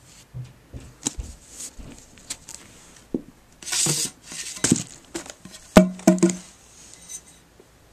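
Handling noise from a paintball barrel and its plastic mailer bag: scattered light clicks and a rustle of plastic, then two sharp knocks about six seconds in, the second followed by a short low metallic ring from the metal barrel tube.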